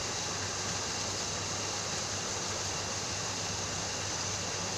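Steady rushing hiss of water falling in an artificial garden waterfall.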